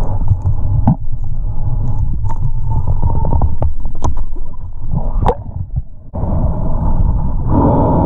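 Muffled underwater rumble and water movement against a camera housing, with several sharp clicks and knocks as a speargun's rubber bands are stretched and their metal wishbones hooked onto the shaft. The sound changes abruptly about six seconds in.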